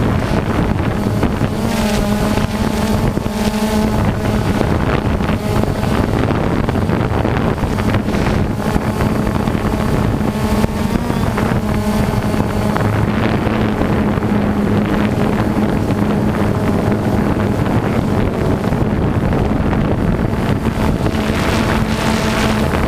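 Radio-controlled off-road cars running on a dirt track, their small motors making a steady buzz with higher notes that rise and fall as the cars speed up and slow. Wind blows on the microphone.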